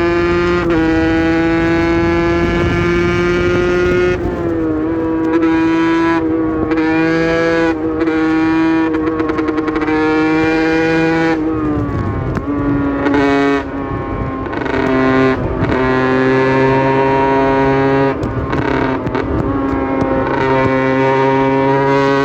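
Aprilia RS 125's 125 cc two-stroke single-cylinder engine running hard at high revs. It holds a steady high pitch with short dips, and the pitch drops clearly about four seconds in and again about twelve seconds in.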